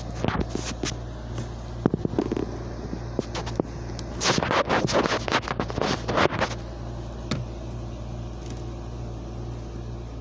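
Handling noise from a camera that has fallen over: a sharp knock about two seconds in, then a burst of close scraping and rattling against the microphone from about four to six and a half seconds, over a steady low hum.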